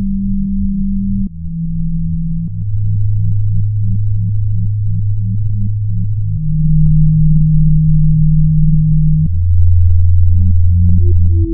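Electronic music: low, held synthesizer tones that step to a new pitch every few seconds, under a steady pulse of short, quieter notes.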